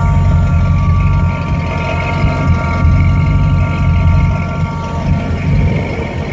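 A vehicle engine idling, a steady low rumble, with a faint steady whine above it that fades near the end.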